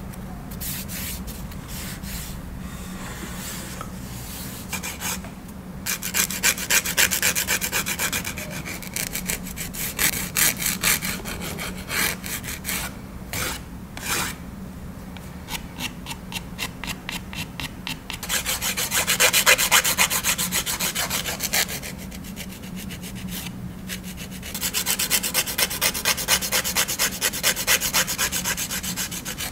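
Hand nail file rubbing across fingernails in rapid back-and-forth strokes, in several bouts with short pauses between.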